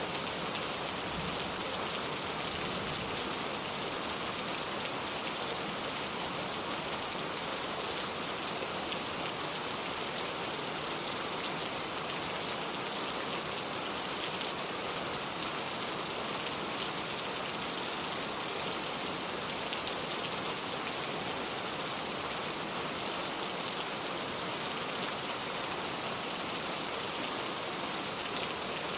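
Heavy rain pouring steadily, a dense hiss of falling rain with many fine drop ticks on surfaces.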